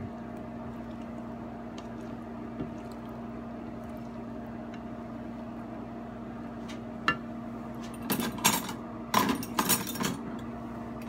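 Sautéed vegetables sizzling softly in a frying pan over a steady low hum, with a wooden spatula scraping and knocking against the pan in a short flurry near the end.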